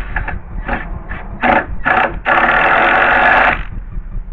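Cordless screw gun (drill/driver) motor whirring in several short trigger blips, then running steadily for about a second and a half, driving or backing out a deck screw.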